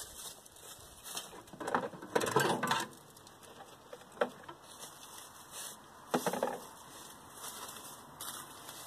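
Scattered clinks and knocks of hand tools on metal engine parts: a quick cluster about two seconds in, a single sharp click around four seconds, and another short clatter past six seconds.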